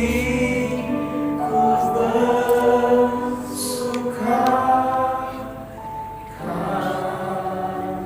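A slow worship song sung with voices holding long notes over a musical accompaniment, each note changing every second or two.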